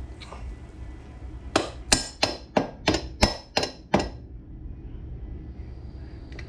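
Eight quick metal-on-metal hammer blows, about three a second, ringing briefly: a hammer striking an old screwdriver used as a makeshift drift to work a chain sprocket loose on a Yamaha Warrior 350 ATV.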